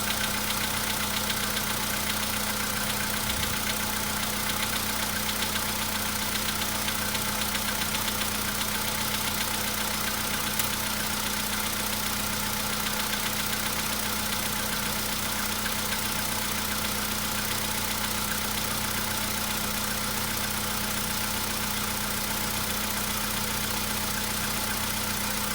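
Volkswagen Polo Sedan's 1.6-litre CFNA four-cylinder petrol engine idling steadily while still cold, about two minutes after a cold start, with a light knock under the idle.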